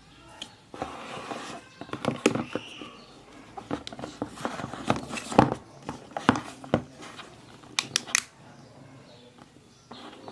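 Hands handling packaging and small LED lights: a stretch of rustling, then a run of sharp clicks and taps, quieter near the end.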